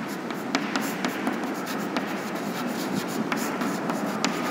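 Chalk writing on a chalkboard: irregular little taps and scratching strokes as letters are written.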